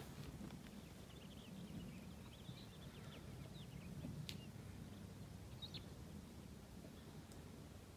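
Faint bird chirps, a few short calls scattered through, over a low steady rumble, with one sharp click about four seconds in.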